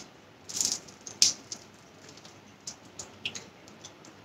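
A crisp fried spring roll crunching: a short crunch about half a second in, a sharp crack just after a second, then scattered light crackles and ticks.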